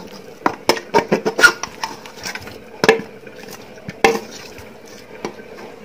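A spoon clinking and tapping against an aluminium pot as chicken masala is spooned onto cooked biryani rice: a quick run of clinks in the first second and a half, then single sharper clinks about three and four seconds in.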